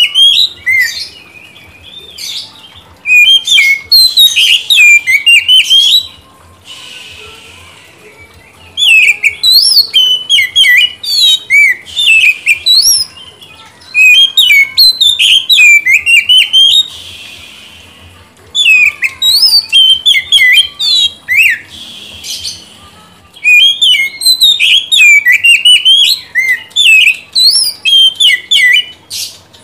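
Oriental magpie-robin singing loud phrases of rapid, varied whistled notes. Each burst lasts two to three seconds with short pauses between, and a few pauses hold a harsh hiss.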